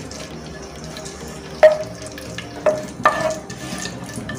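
Chopped cashews, almonds and pistachios frying in hot ghee and oil with a steady low sizzle, stirred with a wooden spatula. The spatula knocks sharply against the non-stick kadhai three times in the second half, each knock ringing briefly.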